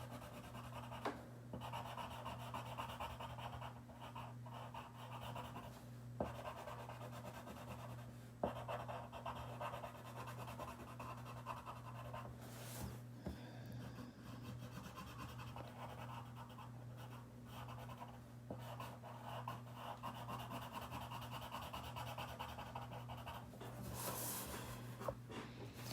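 Faint, continuous scratching of a colouring tool on paper as colour is scribbled in, over a steady low electrical hum.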